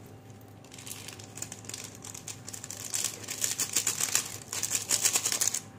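Crinkling of a foil noodle-masala sachet as it is squeezed and shaken to empty its spice powder, a rapid crackle that grows louder in the second half.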